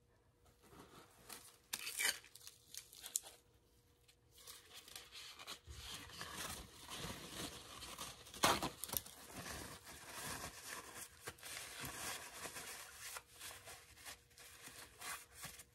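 Irregular scraping and rustling of a spatula dragged through wet acrylic paint on a canvas, with a few sharp taps, the loudest about eight and a half seconds in.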